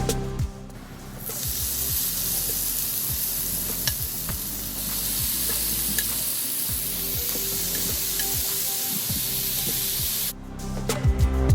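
Chicken shashlik frying in hot oil: a steady sizzling hiss with a few small pops. It starts about a second in and cuts off abruptly near the end.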